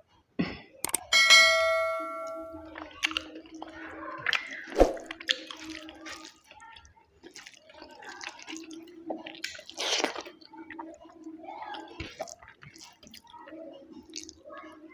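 Close-up eating sounds: wet chewing, lip smacks and small irregular clicks. About a second in, a single metallic clink rings for about a second. A steady low hum runs underneath.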